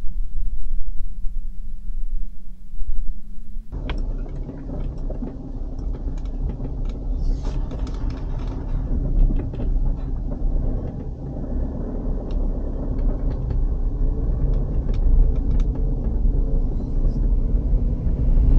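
Vehicle driving on a rough mountain road: steady low engine and road rumble with many small rattles and knocks. About four seconds in, a dull low rumble gives way abruptly to this fuller driving sound.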